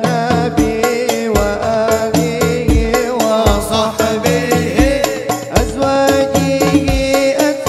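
Hadroh ensemble performing a sholawat: male voices singing an Arabic devotional melody through microphones over frame drums, with deep bass-drum thumps about every half second to second and sharp slaps and jingles between them.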